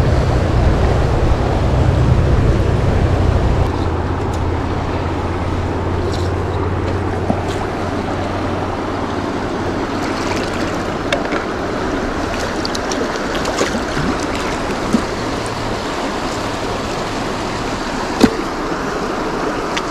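Steady rush of fast-flowing river water, with a low rumble that eases off after the first few seconds. A few faint clicks and one sharp knock near the end.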